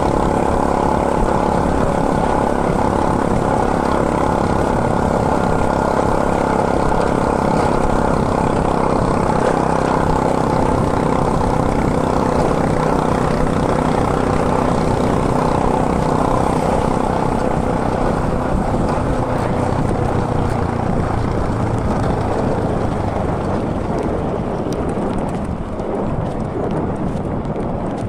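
Steady road drone of a mountain bike being ridden: a hum of several steady tones over a low rumble, easing off a little in the last few seconds.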